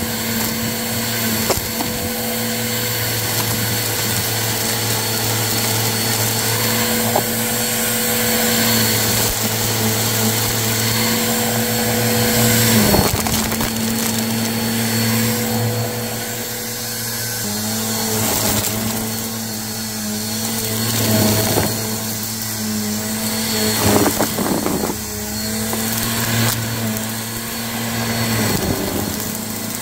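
Bissell Purple Helix upright vacuum cleaner running steadily, pulling lint and debris off the carpet into its dirt bin. It makes a steady hum over a rushing hiss, the hum wavering for a stretch in the middle, with a few sharp clicks.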